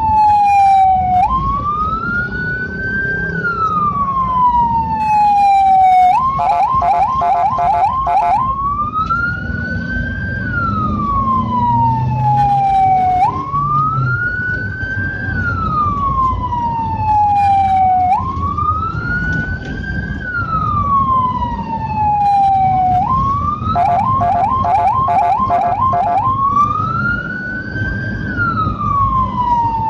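Ambulance siren wailing in slow rises and falls, each climbing for about two seconds and sliding down for about three. A fast pulsing yelp cuts in briefly twice, over the low rumble of the moving vehicle.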